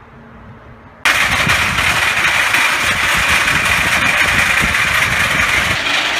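Car-hauler trailer's hydraulic ramp pump starting abruptly about a second in and running at a loud, steady level while the loading ramps rise, then cutting off near the end.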